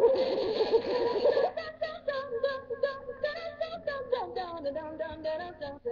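Plush DJ monkey toy playing its built-in rap song: a warbling, voice-like rap for about the first second and a half, then a simple electronic melody over a clicking beat that stops just before the end.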